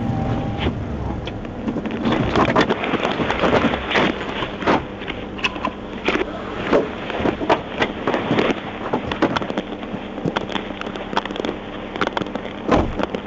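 Gunfire: a long run of sharp cracks at irregular intervals, often more than one a second, over the steady hum of an idling patrol car.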